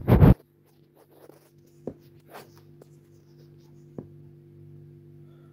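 Handling noise from a phone camera being adjusted by hand: a short loud sound at the very start, then faint taps and rubbing over a steady low hum.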